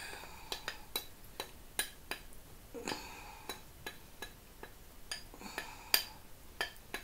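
Metal spoon clinking and scraping against a glass bowl while melted chocolate and butter is scraped out of it: irregular small clinks, a few a second, one sharper clink near the end.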